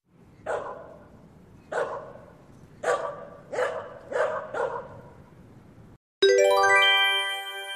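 Dog barking: six short barks, spaced about a second apart, the last few coming quicker. About six seconds in, a bright ringing chime starts, louder than the barks.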